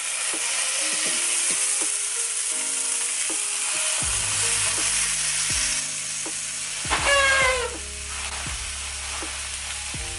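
Vegetarian bacon strips sizzling as they fry in a hot pan, a steady hiss. About seven seconds in, a short cry falling in pitch sounds over the sizzle.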